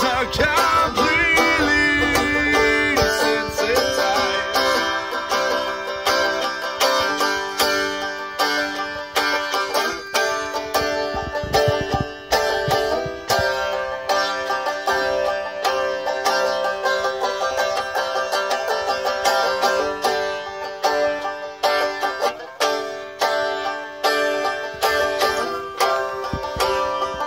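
Solo banjo being picked, playing a steady tune with quick plucked notes.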